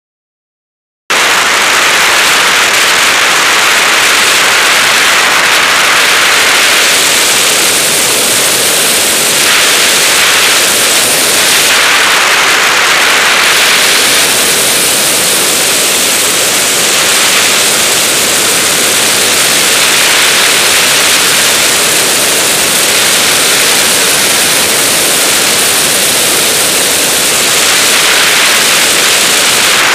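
Loud steady rush of wind noise from airflow over a camera mounted on the tail of a DG-100 sailplane in flight, with no engine sound. It cuts in abruptly about a second in and swells and eases slightly a few times.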